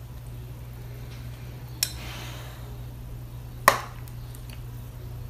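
Metal spoon spreading tomato sauce over bread in an aluminium baking pan: two sharp clinks of the spoon against the dishes, about two seconds apart, the second louder and briefly ringing, with faint scraping after the first. A low steady hum lies underneath.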